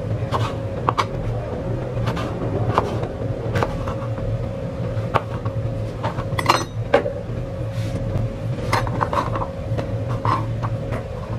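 Kitchen knife cutting bottle gourd on a plastic cutting board: irregular knife knocks against the board, with a brighter clink about halfway through. A steady low hum runs underneath.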